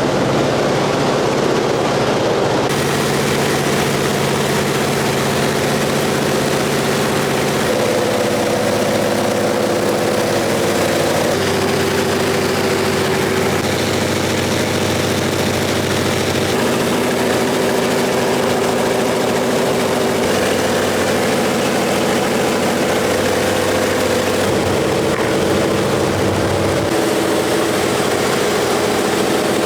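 Antonov An-2's nine-cylinder radial engine and propeller droning steadily at cruise, heard inside the cabin. The drone's pitch shifts slightly in small steps every few seconds.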